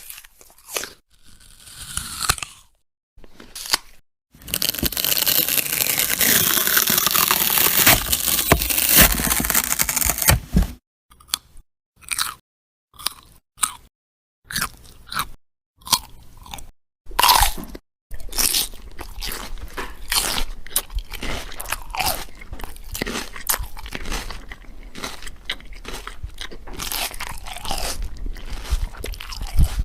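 A run of eating sound effects: short crunchy bites, then a long stretch of dense crunching, then scattered sharp snaps, and finally steady crunchy chewing for the last twelve seconds or so.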